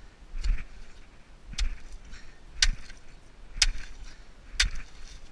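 Steady chopping: five sharp blows about a second apart, each a crack with a dull thud, as chunks are hacked loose from a block.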